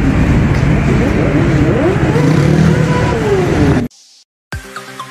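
Street traffic, with vehicle engine pitch falling and rising. It cuts off abruptly about four seconds in, and after a brief silence electronic dance music starts with a steady beat.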